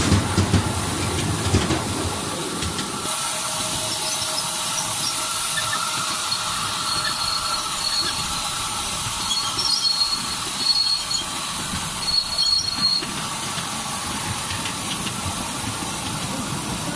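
Ride-on miniature park railway train running on its narrow track, its wheels rumbling low for the first few seconds. After that a steady high hiss takes over as it pulls into the station, with an intermittent high-pitched wheel squeal in the middle.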